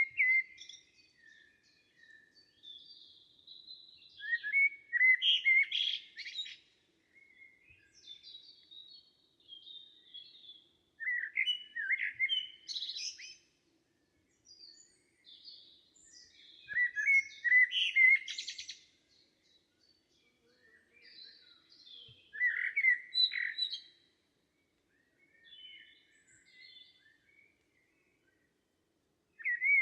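Songbirds singing in a summer forest: one bird repeats a short song phrase of about two seconds roughly every five to six seconds, each ending in a high buzzy flourish, with fainter chirps from other birds in between.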